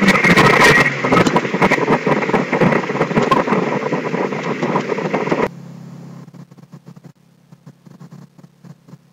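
Turbocharged Honda S2000's F20C four-cylinder, throttle snapped shut after a full-throttle boost pull, the engine coming down from about 6,000 rpm to idle amid loud in-car noise. About five and a half seconds in, the sound drops abruptly to a quiet steady low hum.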